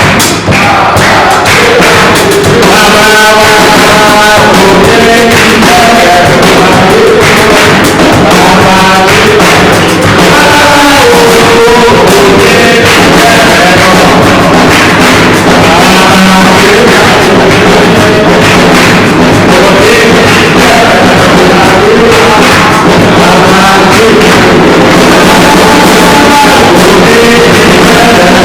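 Loud live praise music: singing voices over a band with a drum kit, played through a church PA.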